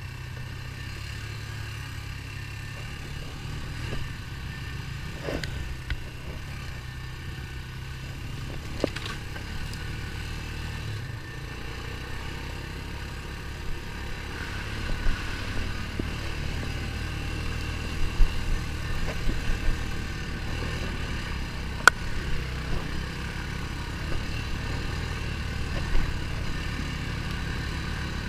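ATV engine running steadily under way, with sharp knocks and rattles from the machine scattered through, more of them and louder in the second half.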